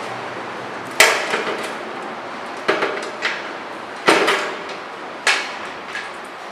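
Sharp metal knocks and clanks against a stainless-steel machine frame as a leg bracket is fitted and bolted on: four loud knocks at irregular intervals of about a second or more, with a few lighter taps between them.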